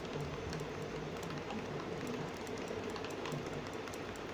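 A spoon beating eggs, oil and sugar by hand in a bowl: quick, uneven clicks of the spoon against the bowl, with the sugar not yet dissolved.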